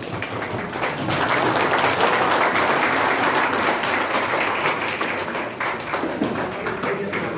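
Audience applauding: a steady patter of many hands clapping that swells about a second in and eases a little near the end.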